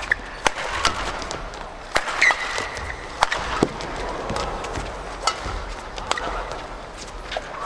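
Badminton rally: rackets smacking the shuttlecock in sharp, quick hits about once a second, with a short high squeak of court shoes about two seconds in over the hum of an indoor arena.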